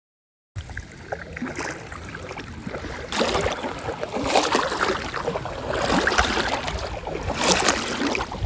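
Wind buffeting the microphone with water noise on open water, starting abruptly about half a second in and swelling in gusts several times.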